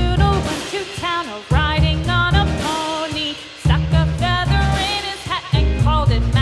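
Background music with a steady beat and a melody line that may be sung.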